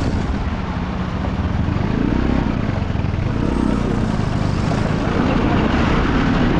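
Motorcycle engine running while the bike works through a broken, rutted stretch of road, its revs rising and falling twice, under a steady rushing noise.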